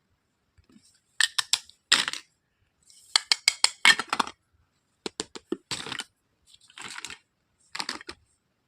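Hard plastic toy pieces from a doctor playset being handled, clicking and clattering in short quick clusters, about six bursts of sharp taps and rattles.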